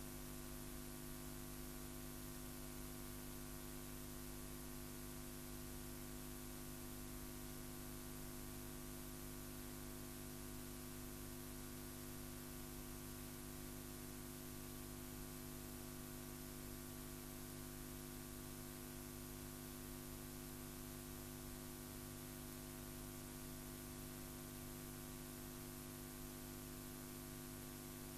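Steady mains hum with many even overtones over a constant hiss, with no other sound.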